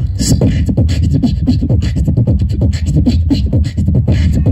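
Beatboxer performing a fast rhythm into a handheld microphone: a quick, dense run of mouth clicks and snares over a deep bass line, amplified through the PA.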